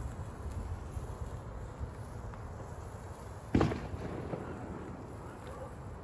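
A single firework bang about three and a half seconds in, trailing off over about half a second, over steady low outdoor background noise.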